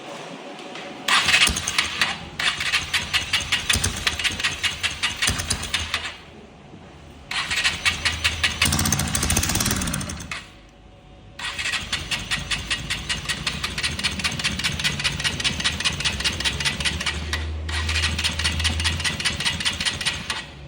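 Honda XR 150L single-cylinder four-stroke engine running with a loud, rapid, rhythmic knocking from the top end, in three stretches with short breaks. The revs rise briefly about halfway through. The mechanic traces the knock to a scored cylinder with excess piston-to-cylinder clearance, which also lets the engine burn oil.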